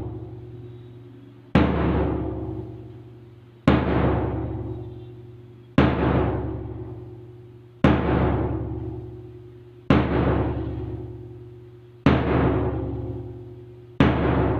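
A drum beaten once about every two seconds, seven beats in all, each ringing out and fading, keeping the count for a physical-training drill. A steady low hum runs underneath.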